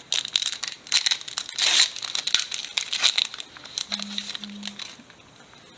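Foil Pokémon booster pack wrapper crinkling and crackling as it is handled and torn open by hand, loudest about two seconds in and dying down near the end.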